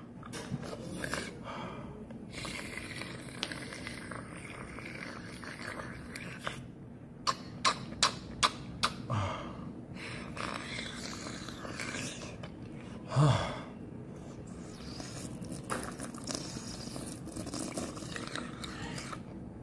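A man breathing hard and sniffling through the burn of extremely hot chili wings, with short throaty sounds about nine and thirteen seconds in. A run of five sharp clicks comes between about seven and nine seconds.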